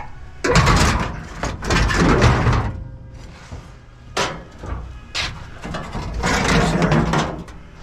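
Scrap pieces scraping, sliding and knocking against each other as they are stacked and packed into a truck bed: several rough scrapes, with two sharp knocks in the middle and a longer scrape near the end.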